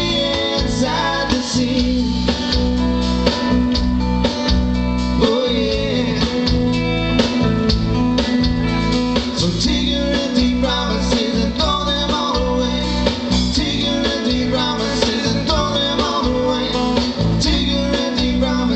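Live band playing an instrumental break: a harmonica lead wails over strummed acoustic guitar, electric guitar, bass and a steady drum beat.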